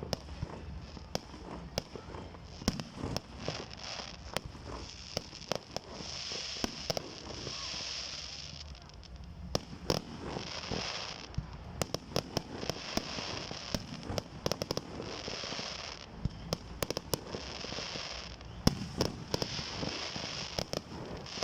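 Fireworks display: a steady stream of sharp bangs from bursting shells, with stretches of high crackling hiss from crackle effects, about six seconds in, near ten seconds and again near the end.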